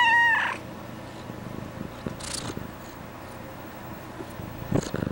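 Domestic cat giving one short, high, wavering meow, followed by a brief rustle about two seconds later and a light knock near the end.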